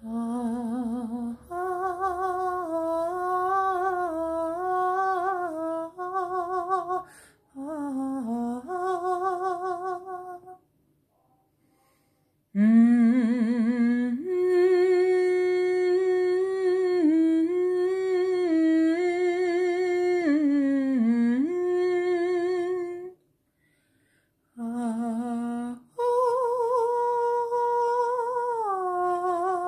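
Wordless vocal toning: a single voice hums or sings long held notes with a wavering vibrato, stepping and sliding between pitches. The phrases are broken by short silences about 11 seconds and 23 seconds in.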